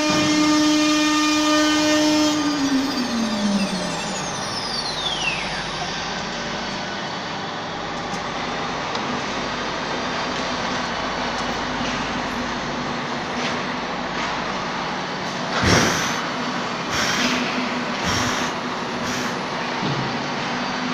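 CNC wood router spindles: a steady high whine that winds down in pitch about two to four seconds in, then the steady whine and noise of a router spindle engraving MDF. Near the end come four short loud rushes of noise, the first the loudest.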